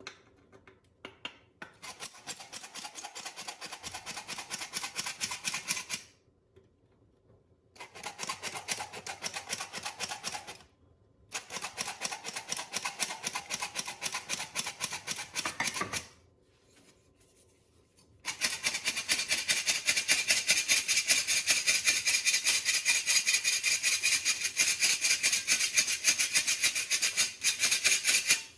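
Whisk beating cake ingredients in a bowl: rapid, even scraping strokes in four bouts with short pauses between them, the last bout the longest and loudest.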